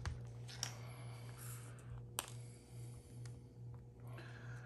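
Faint handling noises from prying at a phone's cracked back glass: a few sharp clicks and some light scraping, over a steady low hum.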